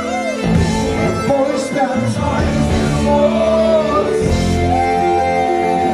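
A live rock band playing, with a male lead vocal over drums, bass guitar and keyboards.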